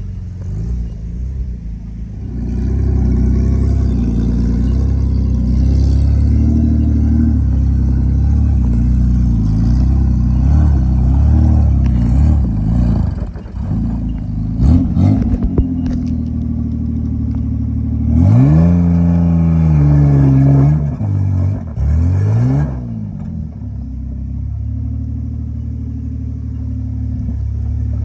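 Straight-piped Nissan RB30 inline-six with no exhaust system, running loud and revved hard several times. There is a short rev about halfway through, a sharp climb held high a few seconds later that then drops away, and another quick blip before it settles back to a lower, steady running note.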